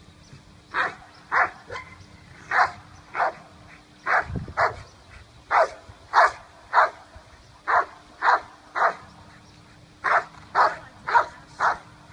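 Rottweiler barking: a steady run of single, sharp barks, roughly one every half second, broken by a couple of short pauses.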